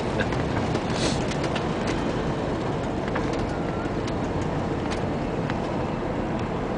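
Steady city traffic noise heard from a moving pedicab: a constant rumble of car engines and road noise, with a few faint clicks.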